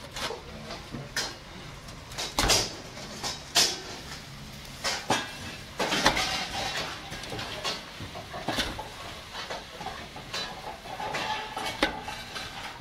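Irregular knocks and clatters from a large aluminium cooking pot as pieces of fried chicken are packed into it by hand.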